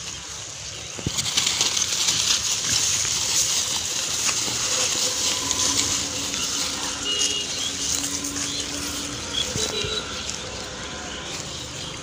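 Plastic bags and dry litter on a rubbish dump rustling and crackling continuously as pigs root through them. It grows louder about a second in.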